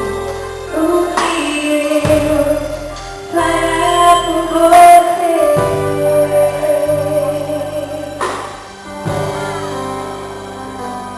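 Gospel worship band music: singing, a woman's voice prominent, over held instrumental chords and a steady bass line.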